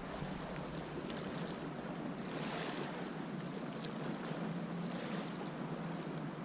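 Steady wash of the sea against the shore with light wind on the microphone, and a few faint clicks over it.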